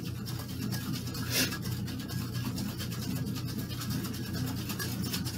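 Cocktail shaker being shaken hard with no ice (a dry shake): the gin, citrus, raspberries and egg white slosh steadily inside the sealed shaker, beating the egg white into a froth.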